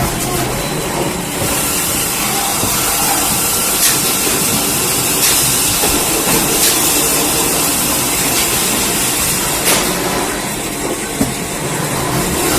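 High-speed band saw cutting machine running with a steady loud hiss, with a few sharp clicks, about 4, 6.5 and 10 seconds in.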